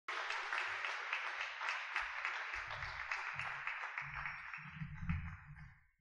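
Audience applauding, the clapping dying away near the end, with some low thudding underneath.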